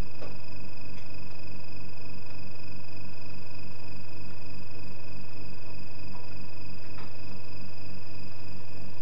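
Loud, steady electrical hum and buzz with a few fixed high-pitched tones over it, unchanging throughout, with only a few faint ticks.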